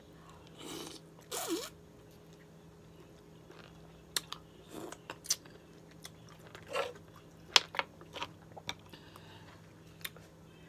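Someone eating green-lipped mussels in spicy sauce: two short breathy sounds about a second in, then scattered sharp clicks and smacks of chewing.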